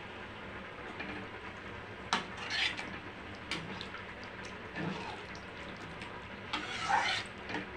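Steel spoon stirring vegetables through a simmering coconut-milk curry in a kadai: several scrapes and clinks against the pan over a steady hiss, the longest scrape about seven seconds in.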